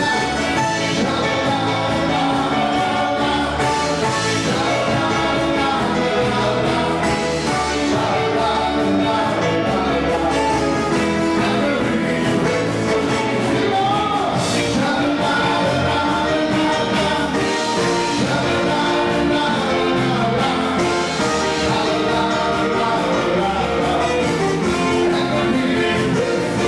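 Music: a song with a singer over band accompaniment, at a steady level.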